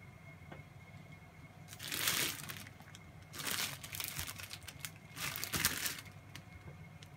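Plastic bread bag crinkling as a loaf of sliced bread is picked up and handled, in three bursts about a second long each.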